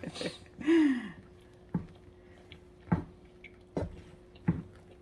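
A spoon stirring melting marshmallows in a small pot, knocking against the pot four times, about once a second. A short falling tone sounds about a second in.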